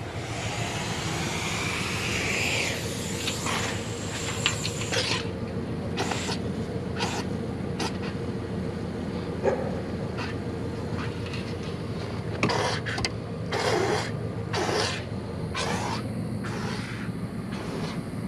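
Scrap metal being handled and set down: scattered clanks and knocks, more of them in the second half, over a steady low hum. A hiss runs through the first five seconds and stops.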